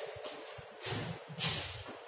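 Chalk writing on a blackboard: a few short strokes of chalk on the board, the two loudest a little before and a little after the middle.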